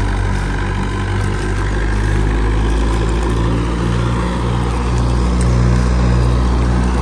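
Engine-driven wheat thresher running steadily: a loud, low engine drone with a regular throb.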